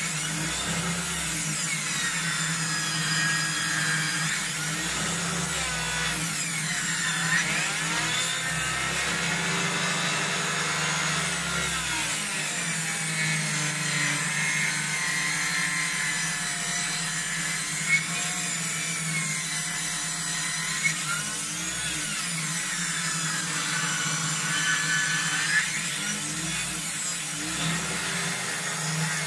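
Electric power saw ripping a birch log lengthwise, the blade under heavy load, making the cut smoke. The motor runs steadily, and its whine dips and recovers as the log is pushed through, with a few sharp ticks.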